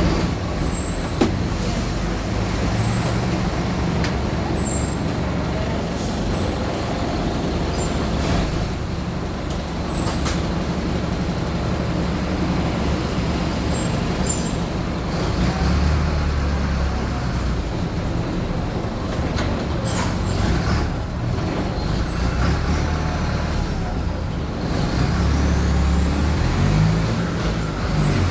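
Mercedes-Benz OF-1722M city bus's diesel engine running under way, swelling several times as it pulls harder and easing off between, with the brief hiss of the air brakes now and then.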